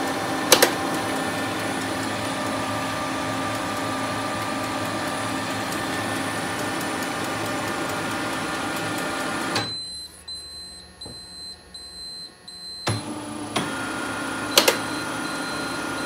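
Fuji Xerox DocuPrint C3300 colour laser printer running its start-up cycle after power-on: a steady motor and fan hum with occasional sharp clicks. The hum stops abruptly about ten seconds in, leaving a faint pulsing high tone, then starts again about three seconds later with more clicks.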